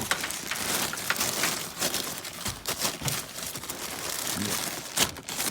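Rustling and crinkling of parts packaging as boxed parts are rummaged through, with scattered small clicks and knocks and one sharper click near the end.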